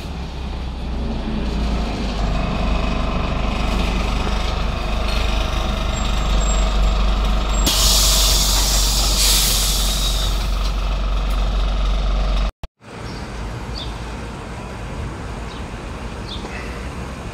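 LAZ A183 city bus running with a steady low engine rumble, then a loud hiss of released compressed air from the bus's pneumatics, lasting about three seconds. Near the end the sound cuts out briefly and returns as a quieter, steady background with a few faint clicks.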